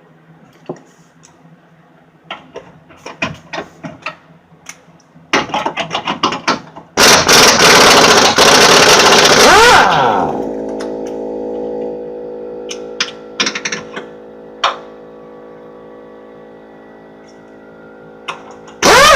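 Impact wrench hammering a 21 mm suspension bolt loose for about three seconds, then spinning down with a falling whine. Scattered clicks of tools being handled come before it, a steady hum follows, and a second burst of the wrench starts right at the end.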